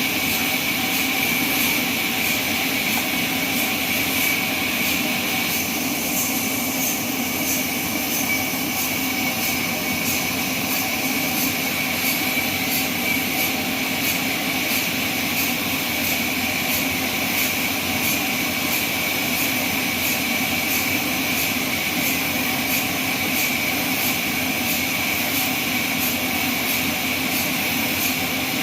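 Band sawmill running steadily, a continuous machine noise with a steady high-pitched whine.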